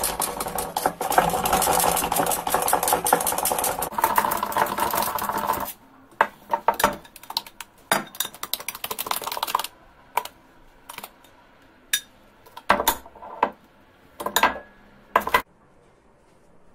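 Wire whisk stirring in a glass measuring jug, its wires scraping and clicking against the glass in a dense, fast run for about five and a half seconds, then a looser run of clicks. After that come about six separate knocks, roughly one a second, as it taps against the jug.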